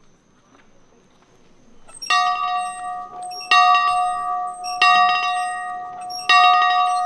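A bell struck four times, about every second and a half, each stroke ringing on and fading before the next.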